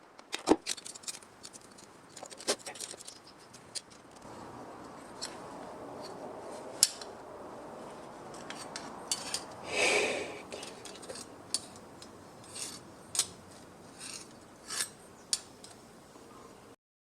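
Hand tools working sheet metal: scattered sharp metallic clicks and clinks, some scraping and rubbing, and one longer scrape about ten seconds in. The sound cuts off abruptly near the end.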